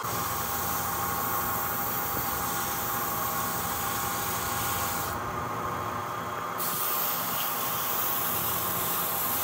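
Hand-held sandpaper pressed against a padauk knife handle spinning on a small wood lathe: a steady rushing hiss of sanding over the even hum of the lathe motor. The hiss eases for a second or so about halfway through, then comes back.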